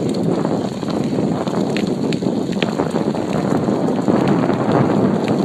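Wind buffeting the microphone while riding a bicycle along a path: a steady low rumble of rushing air, with a few faint ticks about two seconds in.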